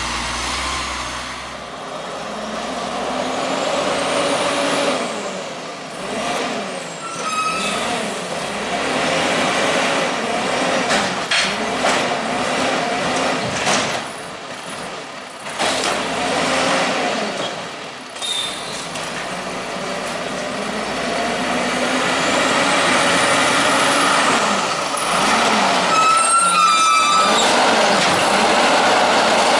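Diesel automated side-loader garbage trucks running, engines revving up and down. Air brakes squeal twice, about 7 seconds in and again near the end as a White GMC Xpeditor with an Amrep body pulls up to the carts.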